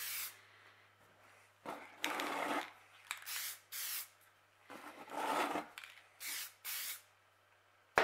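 Satin clear coat sprayed from an aerosol can in about seven short hissing bursts, two of them longer and fuller, at about 2 and 5 seconds in.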